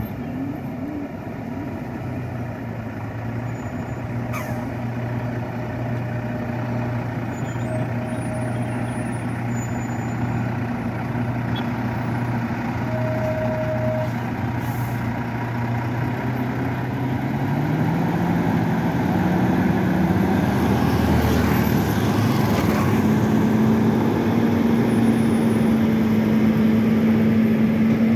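Diesel engine of a Volvo heavy-haul tractor unit pulling a loaded multi-axle girder trailer at crawling speed, getting louder as it approaches. About two-thirds of the way through, the engine note rises to a higher, steady pitch as it revs up under the load.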